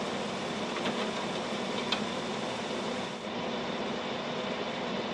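Portable air conditioner running: a steady hum and whir, with two light clicks about one and two seconds in.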